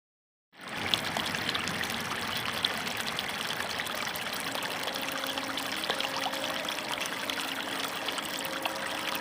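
Waterfall: steady rushing and splashing water that fades in quickly about half a second in, after silence.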